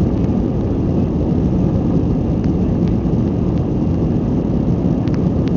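Cabin noise inside an Airbus A320-200 airliner in flight: a steady low rumble of the jet engines and the airflow past the fuselage.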